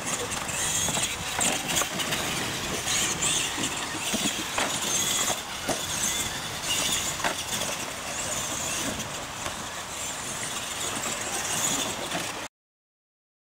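Radio-controlled monster trucks racing on a dirt track: motors running and tyres on dirt, with scattered short clicks and knocks. The sound cuts off suddenly near the end.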